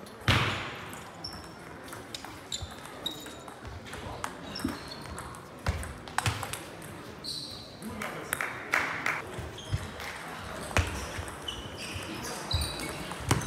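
Table tennis rally: the plastic ball clicking off the rackets and the table in a quick back-and-forth, with sharp ball strikes every half second or so.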